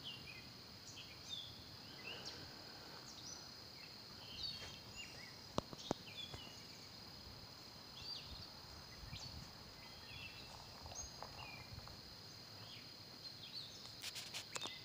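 Quiet outdoor ambience: a steady high insect drone with many short bird chirps scattered through it. Two sharp clicks come about six seconds in, and a few more near the end.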